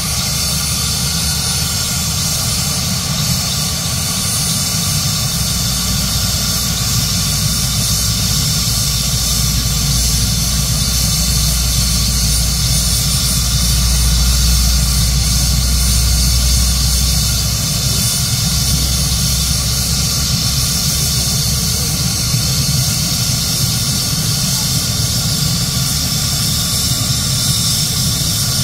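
Turbine air-ambulance helicopter running on the ground, main rotor turning during startup: a steady high turbine whine over a low rotor rumble that swells a little around the middle and then eases.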